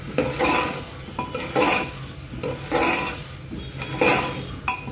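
Spoon scraping and stirring meat, onions and tomatoes against the bottom and sides of an aluminium pressure cooker, four strokes about a second apart, with a light sizzle of the food frying on high heat.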